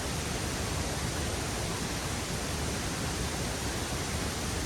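Waterfall crashing with a steady, loud rush of falling water.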